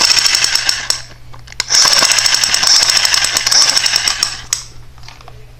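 Toy semi-automatic sniper rifle's firing sound effect: two bursts of rapid-fire rattling over a high whine, the first about a second long, the second about three seconds, stopping suddenly.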